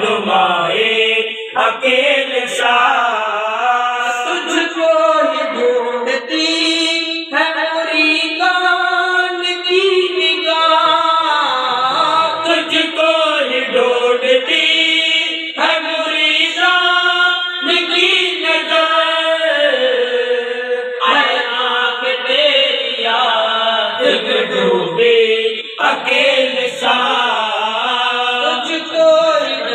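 Men's voices chanting a devotional Islamic hymn with no instruments, in long drawn-out sung lines that glide between held notes.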